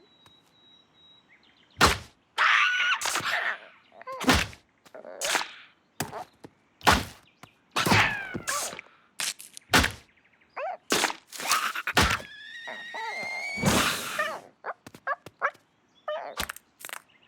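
Cartoon slapstick sound effects: a rapid string of thuds and whacks mixed with short pitched cries, and a rising whistle-like glide a little past halfway.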